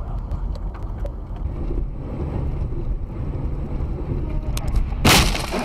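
Steady low road and wind rumble of a moving vehicle as picked up by a dashcam. About five seconds in there is a short, loud burst of hissing noise.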